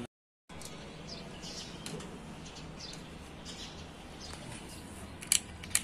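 Birds chirping faintly over a low steady hum, with two sharp clicks near the end. The sound drops out completely for half a second at the start.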